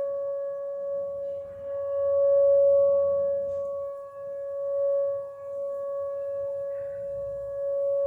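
Outdoor tornado warning siren sounding a steady tone at one unchanging pitch. The tone swells and fades in loudness about every three seconds.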